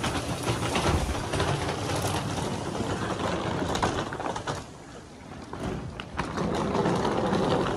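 Vehicle running, with scattered knocks and clatter; the noise eases about five seconds in and rises again near the end.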